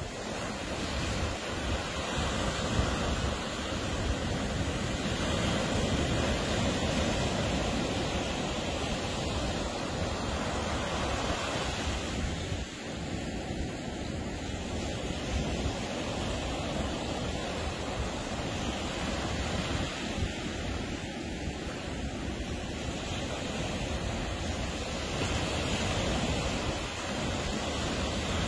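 Atlantic Ocean surf: waves breaking and washing up the beach in a steady rush that swells and eases slowly over several seconds.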